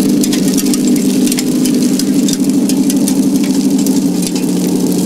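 Large-scale radio-controlled Sherman model tank driving: a steady, even hum from its drive with rapid, irregular clicking and crackling from its tracks running over wood chips and dry leaves.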